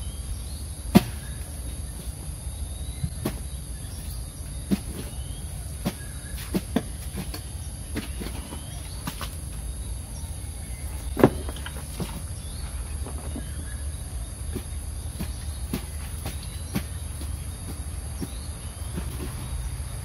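Hand hoe digging and scraping wet mud out of a drain: irregular knocks and scrapes every second or two, the loudest about a second in and about eleven seconds in. A steady high insect drone runs underneath.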